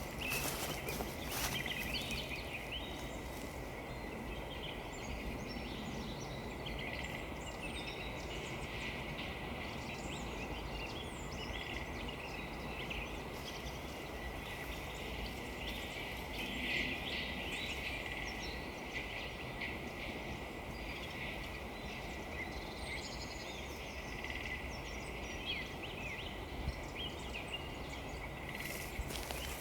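Many small woodland birds chirping and calling on and off over a steady outdoor background hiss, with a few footsteps crunching on frozen ground near the start and end.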